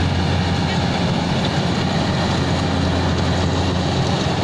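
Rice combine harvester's engine and machinery running steadily as it works the field: a loud, even drone with a strong constant low hum.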